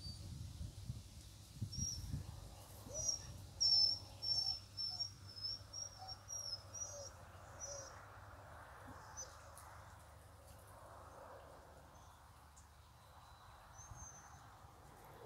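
Week-old ducklings peeping: a quick run of short, high peeps in the first half, thinning out to an occasional peep later on.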